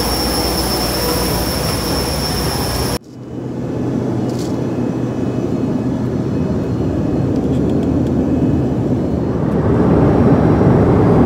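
Jet aircraft engines running on the ramp, a steady whine with high whistling tones. About three seconds in, a sudden cut to the steady roar of an airliner cabin in flight, which grows a little louder near the end.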